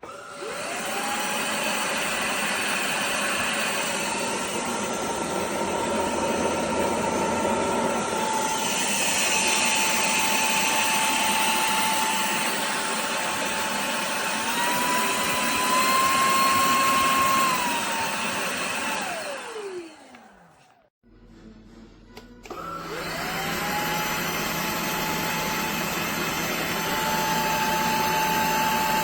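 DIFFULL V20 cordless stick vacuum motor switched on with a rising whine that settles into a steady run and steps up to a higher pitch. It is then switched off and spins down with a falling whine. After about a second and a half it is started again, whining up to speed and stepping up once more near the end.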